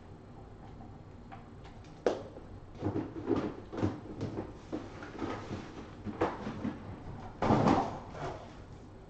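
Knocks and rustles of things being handled: a sharp knock about two seconds in, then irregular bumps and scrapes, loudest in a cluster near the end.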